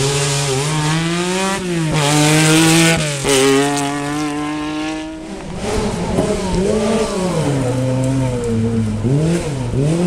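Rally car engine at full throttle, its pitch climbing and dropping sharply at two quick upshifts. About halfway through a second rally car, a Lancia 037, takes over, its engine note rising and falling repeatedly as the throttle is lifted and reapplied while it comes past.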